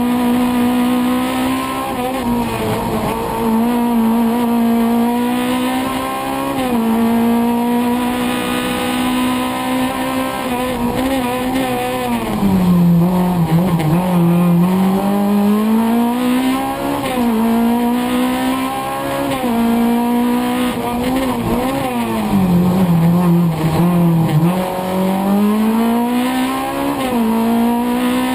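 Racing car engine heard from inside the cockpit, driven hard on high revs with quick gear changes. Twice the revs sag for a slower section and then climb back up.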